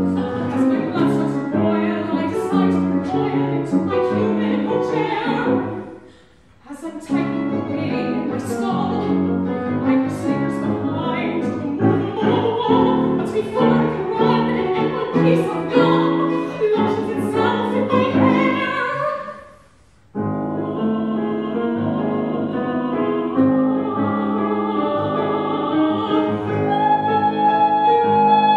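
Live classical chamber music: grand piano and violin play a busy passage that breaks off briefly twice, then settles into held notes. Near the end a soprano voice comes in on a high held note.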